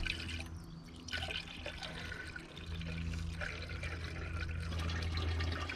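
Tap water being poured into the drained coolant expansion tank of a Peugeot 407 2.0 HDi, pouring and trickling through to flush the cooling system. A steady low hum runs underneath.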